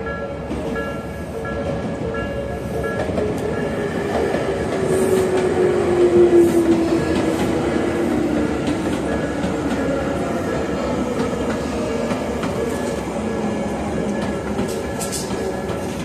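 Tobu 10030-series electric train passing a level crossing as it runs into the station, loudest about six seconds in, with a whine that falls in pitch as it goes by. The crossing's electronic warning bell rings on repeatedly, about twice a second.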